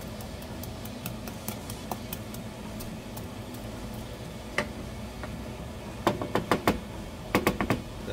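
A wooden spoon stirring corn and pasta in a stainless steel pot of boiling water, with light scattered clicks. Near the end come two quick runs of about five sharp knocks each against the pot.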